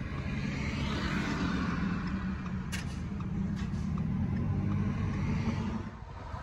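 Car cabin noise while waiting in traffic: a steady low engine hum with road and traffic noise, and a couple of brief clicks near the middle.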